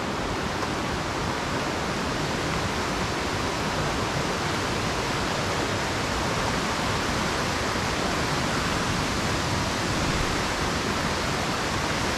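Steady rushing of a rocky mountain river flowing over boulders and small rapids, an even hiss with no breaks.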